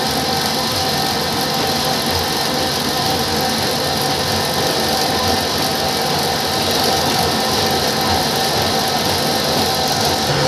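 Rotary veneer peeling lathe running steadily: electric motors and a chain drive turn a log against the peeling knife and ribbed roller. It makes a continuous mechanical noise with a few faint steady tones through it.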